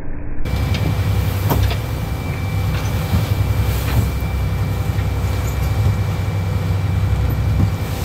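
A boat's engine running steadily with a low hum, under the rush of wind and churning wake water.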